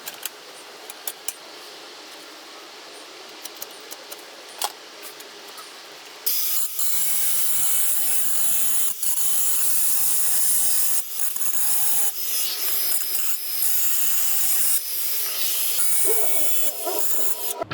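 Power grinder working the edge of a steel angle piece, cleaning it up. After a few light clicks of handling, it starts abruptly about six seconds in and runs as a loud, bright, steady grind for about eleven seconds, then stops just before the end.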